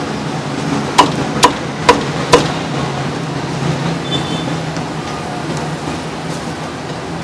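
Meat cleaver chopping cooked meat on a thick round wooden chopping block: four sharp chops about half a second apart in the first two and a half seconds, then the chopping stops, over a steady low background hum.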